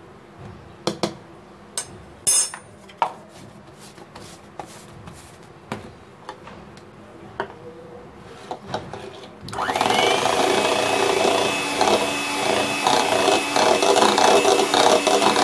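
A few scattered clicks and knocks, then about two-thirds of the way in an electric hand mixer switches on with a short rising whine and runs steadily, its beaters whipping cream and cocoa powder in a bowl.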